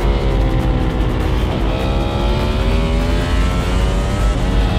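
Two-seater MotoGP racing motorcycle's engine heard onboard at speed. Its pitch falls as the bike slows, then dips sharply about one and a half seconds in. It then climbs steadily under hard acceleration, with a short drop from an upshift near the end.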